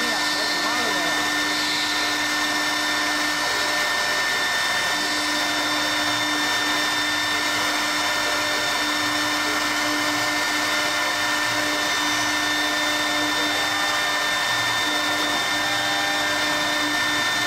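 CNC wood lathe's high-speed router spindle running steadily with a constant whine while the machine works through its program at a slow feed.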